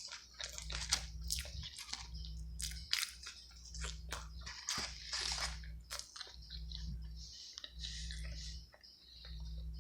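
A person chewing and biting into a cheeseburger and fries close to the microphone: an irregular run of short mouth clicks and smacks.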